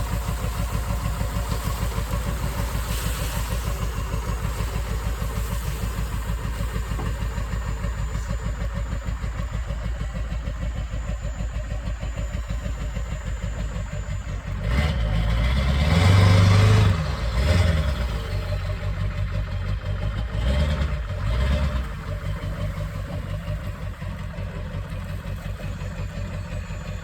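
Ford F550 truck engine idling with a steady low pulse, revved up twice past the halfway mark. It is running with a newly installed transmission so that the transmission fluid level can be checked.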